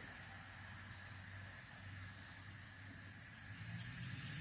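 Steady high-pitched drone of insects, with a faint low hum underneath.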